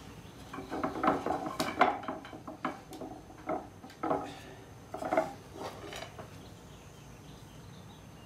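Maple spindles of a Windsor rocker clacking and knocking against one another and the chair frame as they are dry-fitted into their sockets. An irregular run of light wooden knocks that stops about six seconds in.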